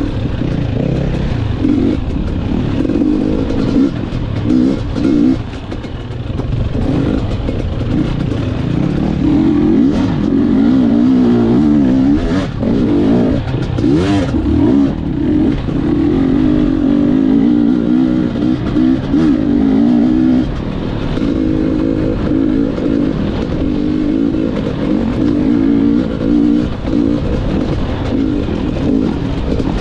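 Gas Gas EC 250 two-stroke enduro motorcycle engine running under the rider, its pitch rising and falling in short throttle bursts over rough rocky ground.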